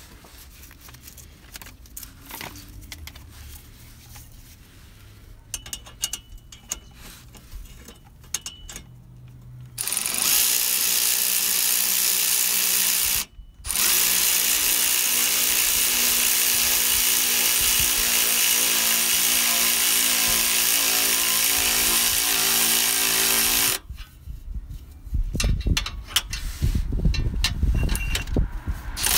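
A cordless power tool runs steadily for about fourteen seconds, with one brief stop, driving a socket on a long extension onto the exhaust downpipe's bolts. It is preceded by faint clicks and followed by louder clicks and knocks of the socket and extension being worked.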